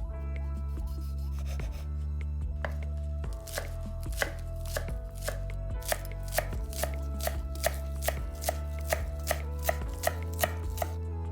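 Kitchen knife chopping food on a cutting board in a steady rhythm of about two to three strokes a second, starting a few seconds in, over soft background music.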